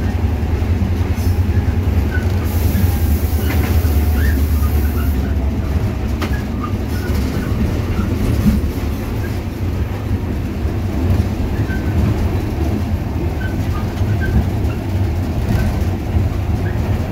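Inside the cab of an EMD GL18B diesel locomotive under way: its eight-cylinder EMD 645 two-stroke diesel runs steadily with a heavy low rumble, over the clatter of wheels on the track. Brief high squeaks come here and there.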